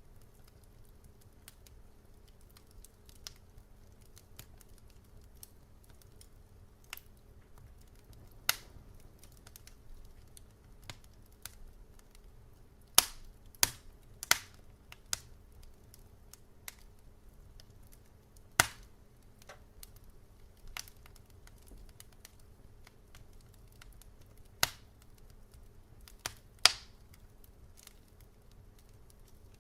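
Wood fire crackling in a fireplace: irregular sharp pops and snaps, with several loud ones about halfway through and near the end, over a faint steady low hum.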